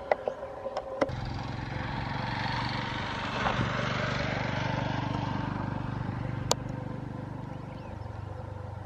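A vehicle engine running steadily, growing louder and then fading as it passes. Sharp clicks come near the start and once more about six and a half seconds in.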